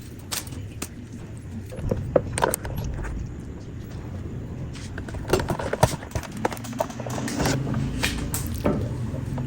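Scattered light clicks, taps and knocks of household objects being handled and set down, over a steady low hum.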